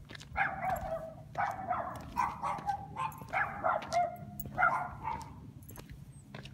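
A dog barking repeatedly, about ten barks in quick runs over the first five seconds, then stopping.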